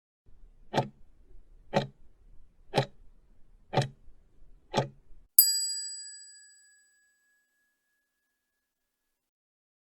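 Countdown timer sound effect: five ticks, one a second, then a single bright bell ding that rings out and fades over about a second and a half.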